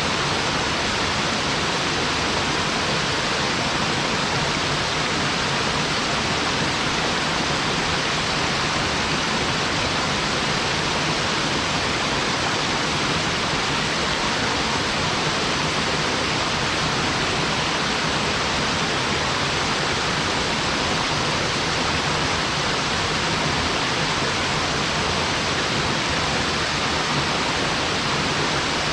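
Waterfall: water falling in three streams onto rock and into a plunge pool, a steady, even rushing.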